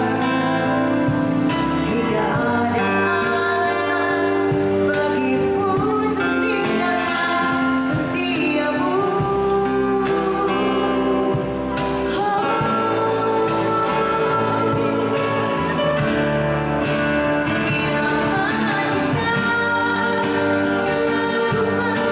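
A woman singing into a microphone with live band accompaniment, including keyboard, heard through a stage sound system.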